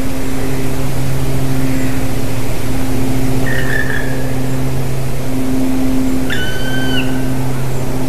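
Black woodpecker giving two drawn-out, even-pitched calls, a faint one about three and a half seconds in and a clearer one about six seconds in, over a loud steady low hum.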